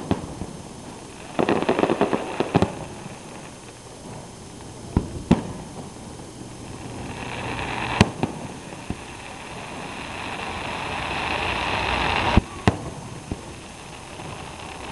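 Aerial fireworks shells bursting: several sharp bangs, a stretch of crackling about two seconds in, and a rush of noise that builds up from the middle and cuts off with a loud bang about twelve seconds in.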